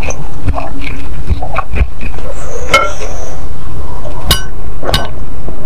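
A spoon clinking against a ceramic bowl a few times, some of the clinks ringing briefly, between close-miked eating noises.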